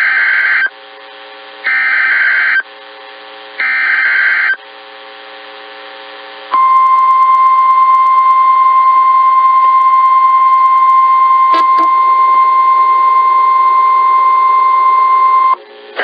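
NOAA Weather Radio Emergency Alert System signal: three short bursts of the raspy SAME data header, about two seconds apart, then the steady 1050 Hz warning alarm tone held for about nine seconds. The tones announce an emergency warning, here a hurricane warning.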